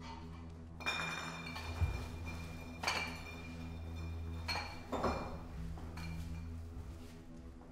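Glass bottles clinking together about five times, each knock leaving a short high ring, over a low steady drone of film score.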